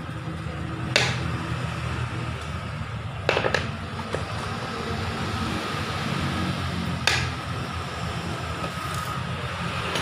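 Sharp clicks and knocks from hand work on a bare Yamaha R25 engine: one about a second in, a quick pair around three and a half seconds, another near seven seconds and one at the end. A steady low hum runs underneath.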